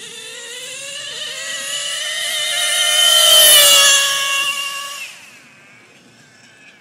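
Traxxas Jato nitro RC truck's small glow-fuel engine running at high revs as the truck races past. It grows louder with rising pitch to its loudest about three and a half seconds in, drops a little in pitch as it goes by, then fades away quickly about five seconds in.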